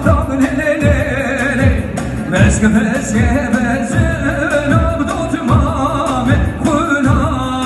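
A song: a solo voice sings a wavering, ornamented melody with heavy vibrato over a steady low drum beat.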